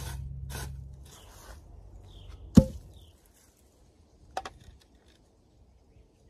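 A shovel scraping and digging in dry soil, a few short strokes, then one loud sharp knock about two and a half seconds in, and a couple of light clicks shortly after.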